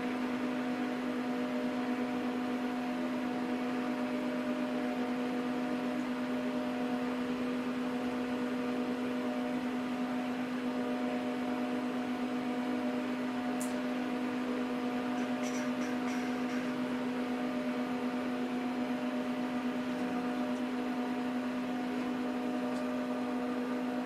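Dell PowerEdge R710 rack server's cooling fans running steadily: a constant whirring hum with a low steady tone and a few fainter higher tones. A few faint ticks come through around the middle.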